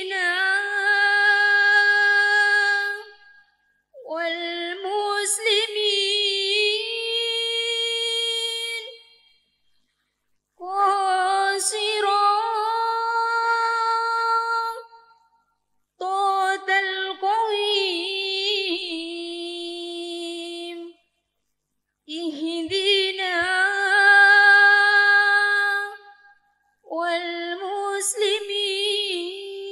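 A solo female voice chanting devotional Arabic verse, unaccompanied, into a microphone. It comes in about six long melodic phrases with held, ornamented notes, each followed by a short pause.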